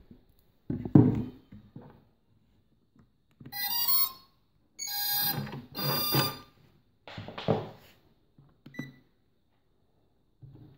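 A LiPo battery plug is connected with a sharp thump about a second in, then the speed controllers on the brushless-motor test rig power up and play their startup beeps through the motors: three bursts of steady electronic tones. Softer knocks from handling follow.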